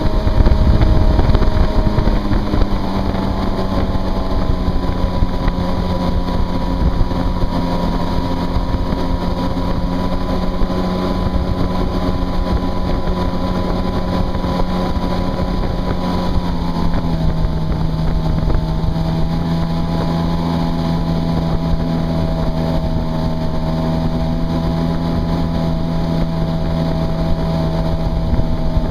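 Yamaha WaveRunner jetski engine running steadily at speed, with the rush of its jet wake spraying behind. The engine note eases down a little about two seconds in and again about seventeen seconds in.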